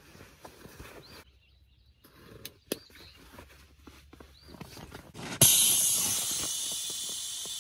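Fabric rustling as a camp pillow is pushed into its stuff sack, with a few faint bird chirps. About five seconds in, air rushes from the opened valve of a Klymit inflatable sleeping pad in a sudden loud hiss that slowly fades as the pad deflates.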